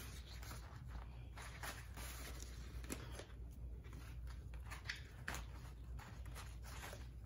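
Fresh banana leaves rustling and crackling as they are lifted, laid flat and smoothed by hand, in quiet scattered crinkles and soft clicks.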